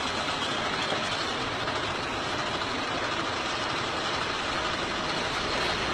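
Steady vehicle engine noise heard from inside a cab, an even sound with no distinct changes.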